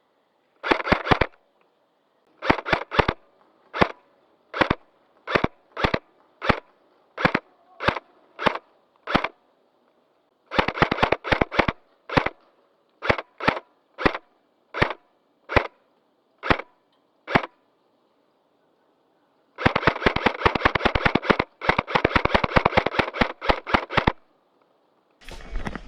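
Airsoft gun firing, each shot a sharp snap. A short burst comes first, then evenly spaced single shots, another short burst, more single shots, and long rapid-fire bursts near the end.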